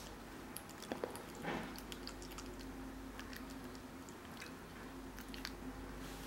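Faint wet mouth clicks and smacks of a baby chewing, with one slightly louder smack about one and a half seconds in, over a low steady hum.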